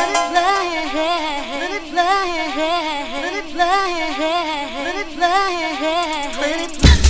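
Old school hardcore music played from vinyl, in a breakdown: a wavering, warbling melodic line, sung or synth, repeats with no bass or drums. Near the end a quick roll of hits builds, and heavy bass and drums come back in just before the end.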